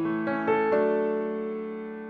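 Slow piano music: a few notes struck within the first second, then left to ring and slowly fade.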